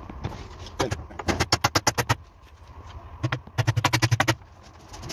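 Claw hammer driving nails into a wooden batten of timber staircase framework: two quick runs of rapid blows, about eight a second, starting about a second and a half in and again near four seconds.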